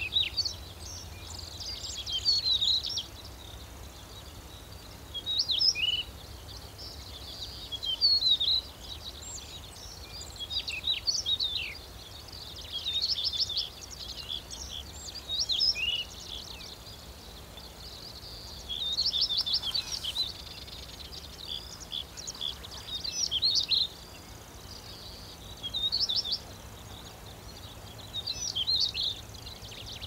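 Stonechat singing: short warbled phrases of high notes, one every two to three seconds.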